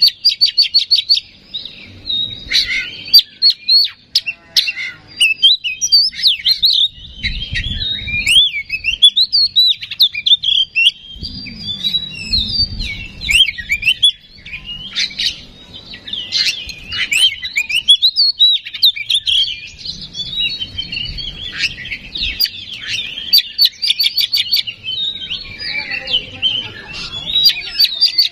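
Oriental magpie-robin (kacer) singing a long, varied song of loud whistles and sliding notes, broken by quick rattling runs of repeated notes at the start and again near the end.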